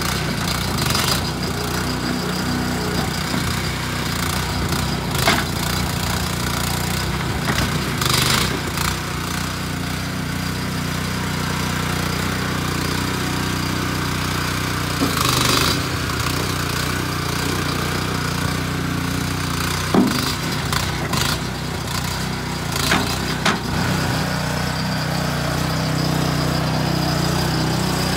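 Small engine of an ATV-towed stone picker running steadily, with a few short knocks and clanks now and then.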